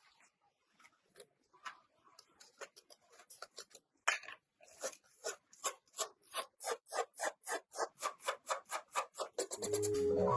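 Rhythmic abrasive scraping strokes on rusty metal, as in hand sanding, filing or wire-brushing. The strokes are sparse and faint at first, then from about four seconds in they become regular and louder at about five strokes a second.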